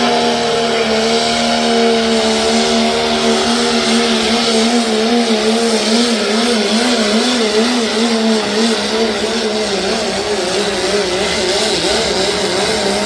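Turbo-diesel engine of a limited pro stock diesel pulling truck at full power dragging the sled, a loud steady drone whose pitch wobbles up and down through the middle of the pull.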